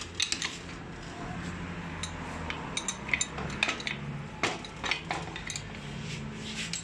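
Scattered metallic clinks and knocks from a diesel injection pump's metal body and loose tools being handled on a workbench, over a low steady hum.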